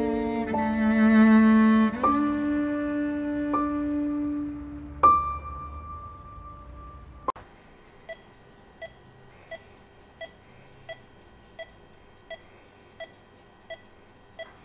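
Slow, sad cello-led string music with long held notes, fading and cutting off about seven seconds in. Then a hospital patient monitor beeps steadily, a little under one and a half short beeps a second.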